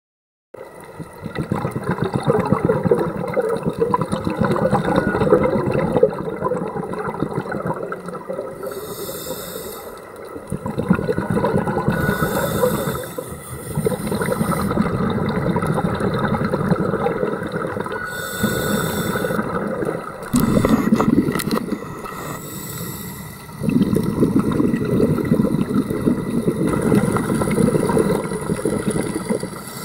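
Scuba diver breathing through a regulator, recorded underwater: short hissing inhales alternate with long exhales of rumbling, bubbling air, over several breaths.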